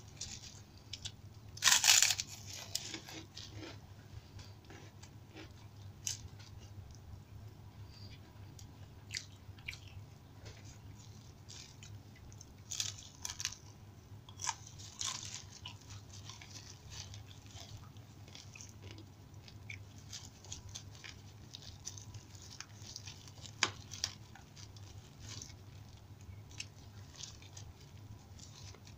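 Close-miked eating: a loud crisp crunch of biting into kerupuk crackers about two seconds in, then scattered small crunches and wet chewing of rice and side dishes.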